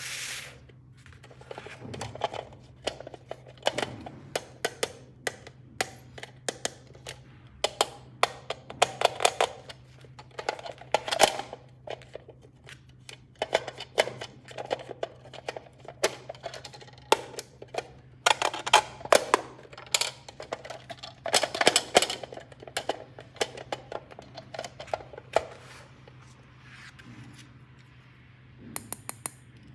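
Small hard plastic toy pieces being handled and unpacked: many quick clicks, taps and rattles, coming in busier clusters twice, over a steady low hum.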